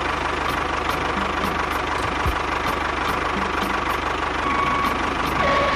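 Tractor engine running steadily with an even, low chugging beat.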